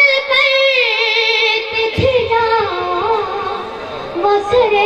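A boy singing a chanted recitation solo, holding long notes that waver and slide between pitches, with a brief break for breath about two seconds in.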